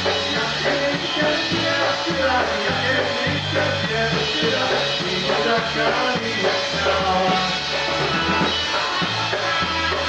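Polka band playing live, with a bass line in even repeating notes under the melody.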